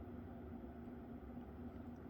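Windmere 42-inch hugger ceiling fan running steadily on high speed: a continuous hum with one held tone and a light whir from its new bearings, which are not yet broken in.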